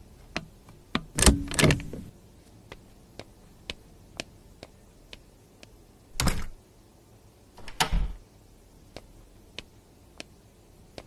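A door with a lever handle is opened and shut, giving a cluster of sharp clunks and knocks about a second in, then two more thuds around six and eight seconds. Faint, regular ticks about twice a second run underneath.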